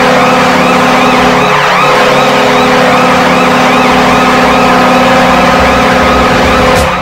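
Hockey goal horn sounding as one steady, loud chord-like blast, with a siren wailing up and down quickly over it. The horn cuts off near the end while the siren carries on.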